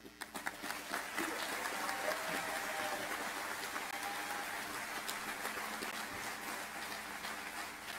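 Audience applauding, starting at once and dying down a little toward the end.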